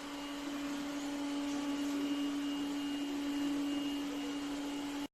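Lefant M1 robot vacuum running: a steady motor hum over an even rush of suction, with a constant low tone and a faint high whine, cut off abruptly at the very end.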